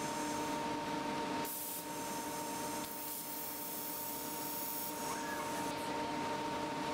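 MicroStep CNC plasma torch edge-marking steel plate. The arc hisses from about a second and a half in until about five seconds in, with a sharper burst of hiss as it strikes and again as it stops, over the machine's steady hum of several tones.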